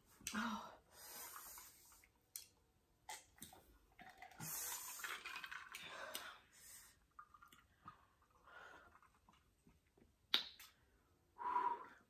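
People sipping a drink from glasses between breaths, with a few sharp little clicks; their mouths are burning from very spicy noodles.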